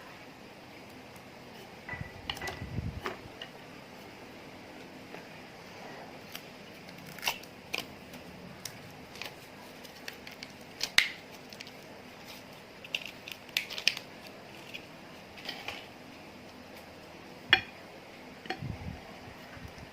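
Slime being handled and pressed, giving irregular sharp clicks and pops, with low squelching about two seconds in and near the end.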